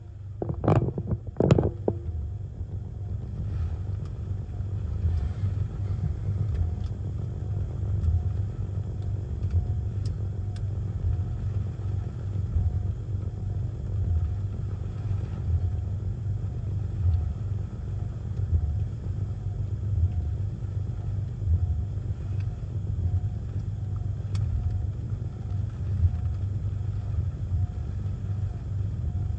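Steady low rumble of hurricane wind and rain buffeting a car, heard from inside the cabin, with the windshield wipers sweeping in a faint even repeat. A few sharp knocks come in the first two seconds.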